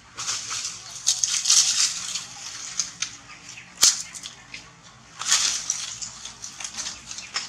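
Leaves and branches rustling in uneven bursts as a macaque moves through the tree, with one sharp snap about four seconds in.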